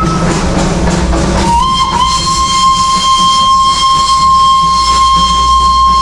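Steam locomotive whistle of the Darjeeling toy train: one long, steady shrill blast that starts about a second and a half in, sliding briefly up in pitch before it settles and holds.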